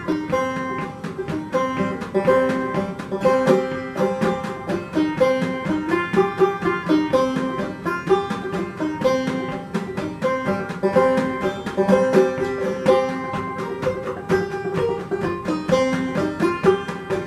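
Banjo played clawhammer style, a steady stream of plucked notes carrying an old-time mountain tune.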